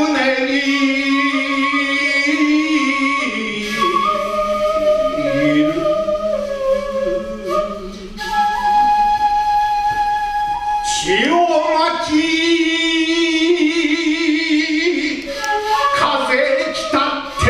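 Male solo shigin: a man chants a classical Chinese poem in long held notes with wide, wavering vibrato. About eight seconds in he breaks off for breath while a steady held accompaniment note fills the gap. Near eleven seconds his voice sweeps up into the next line.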